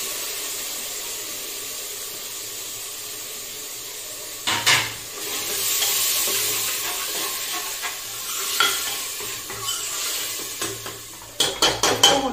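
Onion-tomato masala sizzling in hot oil in a steel pressure cooker as a spoon stirs it, with a scraping knock about four and a half seconds in. Near the end the spoon taps quickly several times against the cooker's rim.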